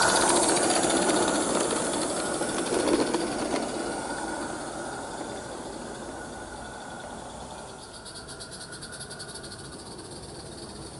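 Roundhouse Lady Anne live steam locomotive and its coaches running past on garden-railway track, the steam hiss and wheel clatter fading as the train moves away. A faint rapid ticking is left near the end.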